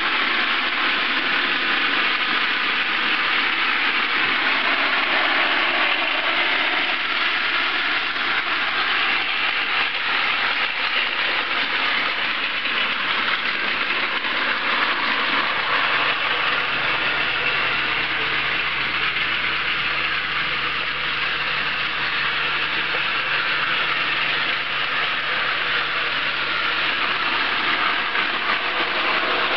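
Battery-powered toy train's small electric motor whirring steadily as it pulls a string of cars along the track.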